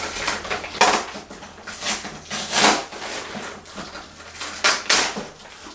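Hands rummaging inside a cardboard shipping box, rustling and scraping the packing material, in several short scratchy bursts.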